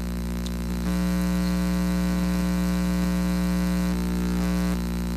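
A steady low hum with many evenly spaced overtones. It swells louder about a second in and drops back in two steps near the end.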